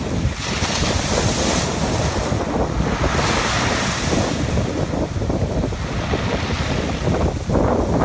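Sea waves breaking on a shingle beach: two surges of foaming surf about half a second and two and a half seconds in, then a fresh rush of water over the pebbles near the end. Wind buffets the microphone throughout, giving a constant low rumble.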